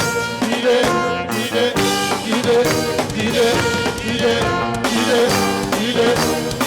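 Instrumental break in a Yoruba praise song: a brass section plays short chords in a steady rhythm over drums.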